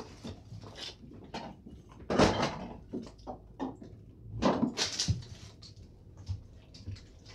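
Kitchen handling sounds: a string of knocks and clatters, as of cupboard doors and food being set on a counter, with two louder thuds about two seconds in and about four and a half seconds in.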